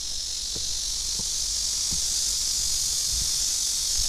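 A chorus of cicadas singing steadily in the trees, a high shrill hiss that swells a little in the middle. Faint footsteps fall about every two-thirds of a second.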